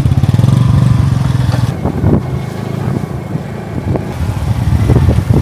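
Motorcycle engine running steadily under way, a loud low drone. It eases off a little about two seconds in and picks up again toward the end.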